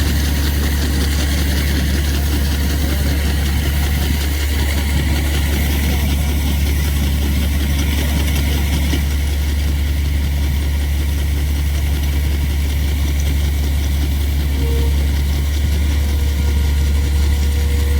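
Harvesting machinery's engine running steadily at a constant speed, a loud deep hum with no changes in pitch.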